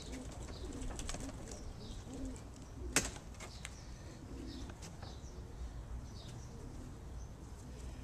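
Racing pigeons cooing in the loft in short, low, repeated calls, with a single sharp click about three seconds in.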